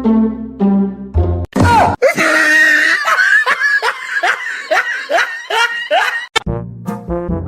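Upbeat music with brass, broken off about a second and a half in by roughly four seconds of loud, shrieking laughter made of repeated falling cries. The music starts again near the end.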